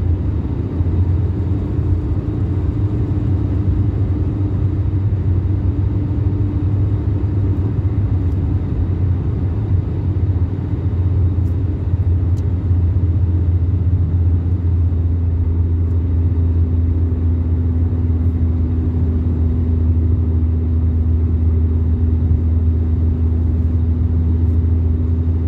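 2010 Toyota Yaris with a DIY cold air intake cruising, heard inside the cabin: a steady engine and road drone with a low hum. A higher engine tone drops slightly in pitch about halfway through, then holds.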